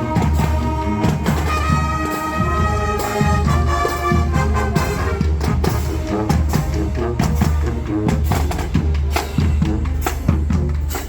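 Marching band playing: held brass chords in the first half, over steady bass drum and snare percussion that carries through.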